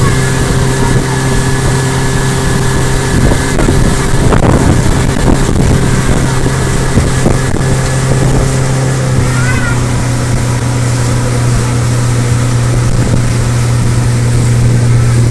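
Motorboat engine running steadily under way, a constant low drone with a rushing hiss of wind and water over it.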